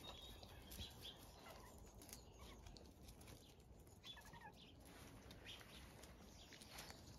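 Near silence: faint garden ambience with a few short, faint bird chirps.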